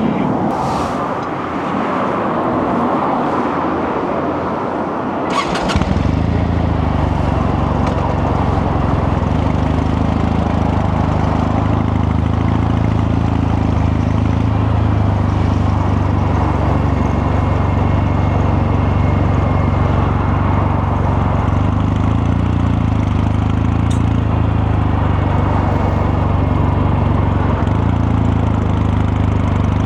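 Kawasaki Meguro K3's air-cooled 773 cc parallel-twin engine started about five and a half seconds in: it catches at once and settles into a steady idle. Before that there is only a steady hiss of background noise.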